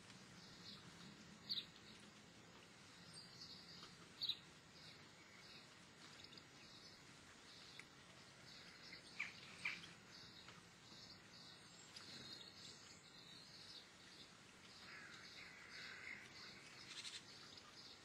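Faint calls of small songbirds: scattered short, high chirps, with two sharper, louder ones in the first few seconds, a close pair about halfway, and a soft twittering near the end.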